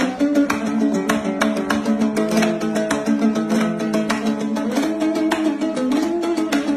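Background music with fast plucked-string notes in a Latin, flamenco-like style.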